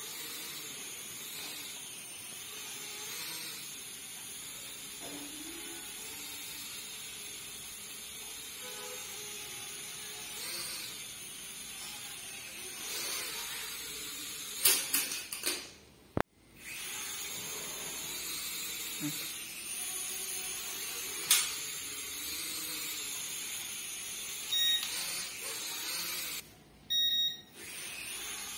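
Small toy quadcopter's four motors and propellers whining steadily in flight, the pitch wavering as it moves about. A few sharp knocks about halfway through as it bumps into things, and a couple of short beeps near the end.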